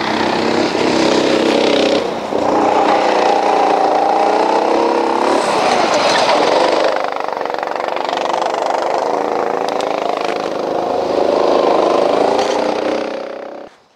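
Go-kart engines running at speed on the track, their pitch rising and falling as the karts accelerate and pass. The sound dies away just before the end.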